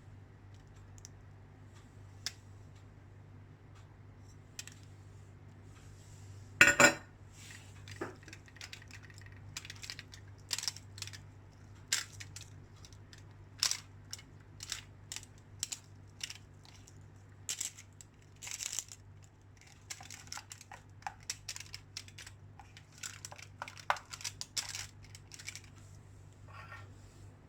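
Kitchen handling sounds: scattered light clicks, taps and rustles of utensils and dishes being handled, with one louder clatter about seven seconds in and a busier run of clicks later on. A faint steady low hum runs underneath.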